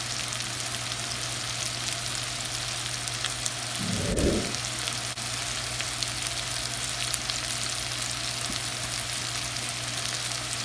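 Beef spleen fry with onions and green capsicum sizzling in hot oil in a pan: a steady hiss with scattered small crackles. A single low thud about four seconds in.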